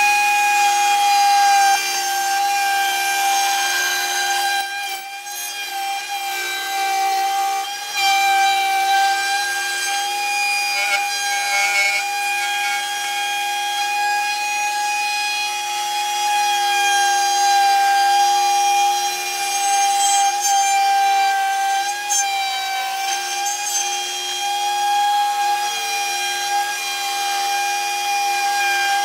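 Router in a router table spinning a bearing-guided flush trim bit, a steady high whine, with the rasp of the bit cutting wood as a curved workpiece is trimmed flush to its template. The loudness dips briefly about five seconds in.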